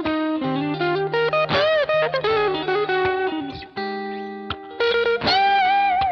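Suhr Asato electric guitar played through a Suhr Kiko Shiba Drive overdrive pedal: a lead phrase of sustained single notes, with string bends and vibrato about one and a half seconds in and again near the end.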